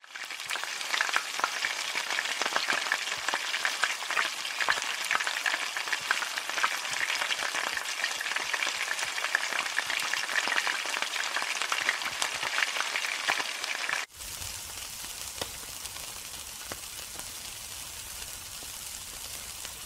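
Food frying in hot oil in a wok, a loud sizzle full of crackling pops. About fourteen seconds in it cuts to a quieter, finer sizzle of chicken skewers grilling over charcoal, with a low rumble underneath.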